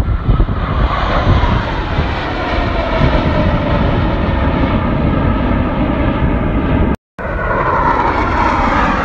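Formation of Blue Angels jet fighters flying low past, a loud jet roar with a whine that falls in pitch as they go by. The sound cuts out briefly about seven seconds in, then another falling whine follows.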